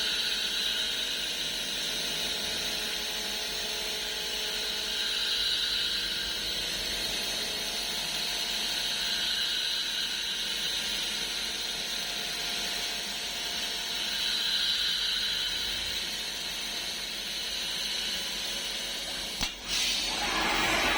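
CNC milling machine cutting 303 stainless steel: a steady, high-pitched cutting noise from the spindle and cutter. Near the end it drops briefly with a click, then comes back louder.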